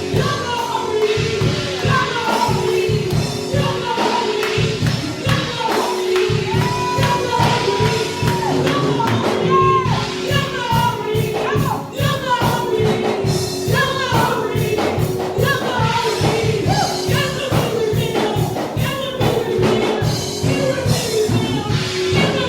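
Gospel music: a choir singing over a steady beat, with a tambourine.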